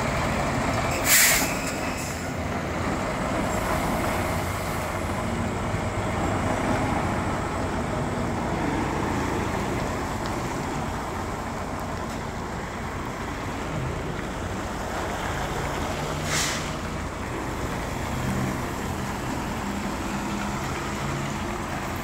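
Diesel semi tractor engine running steadily at low speed while maneuvering. Two short, sharp hisses of air from the truck's air brakes come about a second in and again about 16 seconds in.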